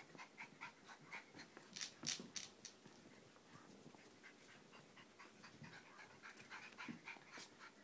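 Cocker spaniel puppy panting quickly and faintly, about four or five breaths a second, easing off after about three seconds and picking up again near the end. A few sharp clicks about two seconds in.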